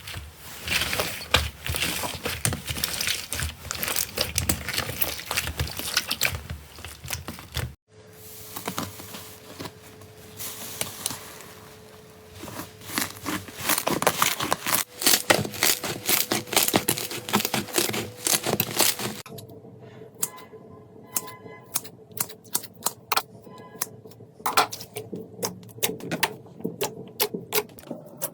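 Slime being squeezed and pressed, making dense, irregular crackling and popping clicks. The sound changes abruptly about 8 seconds in and again about 19 seconds in, as one clip gives way to the next.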